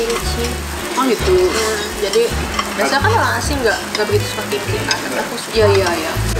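Meat sizzling steadily on a tabletop Korean barbecue grill, with scattered light clicks of chopsticks.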